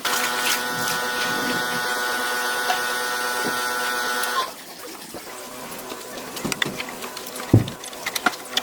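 A small electric motor, as in a power tool, runs with a steady hum for about four seconds and then stops abruptly. Quieter clicks follow, with a single knock near the end.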